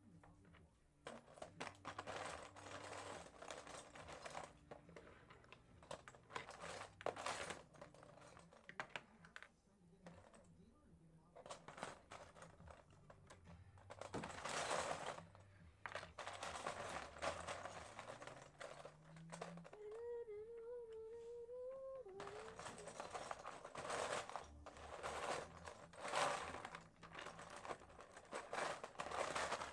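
Plastic toy building bricks being handled and rummaged, with irregular clicks, clatters and rustles. A short wavering hum sounds about twenty seconds in.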